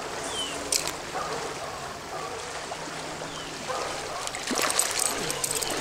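Stream water running and trickling past the wading anglers, with a sharp knock a little under a second in and several light clicks near the end.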